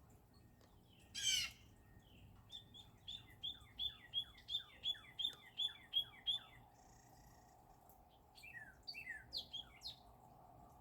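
Northern cardinal singing: a run of about ten quick, repeated down-slurred whistled notes, then a few more after a short pause. A short, loud call sweeps across high and low pitches about a second in.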